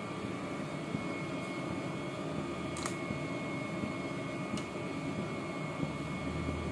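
Gas stove burner running under an empty kadhai as it heats: a steady rushing roar, with a couple of faint clicks about three and four and a half seconds in.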